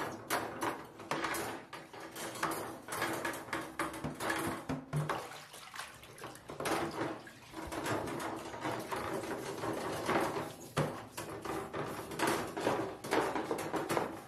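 Wire oven racks being scrubbed by hand in shallow water in a bathtub: irregular rubbing and splashing strokes, with the metal racks clinking and knocking against the tub.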